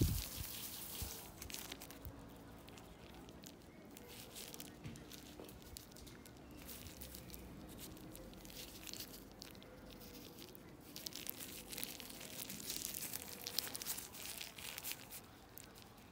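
Faint crinkling and rustling of a thin black disposable glove as the hand turns and grips a knife, in scattered patches that grow louder in the last few seconds.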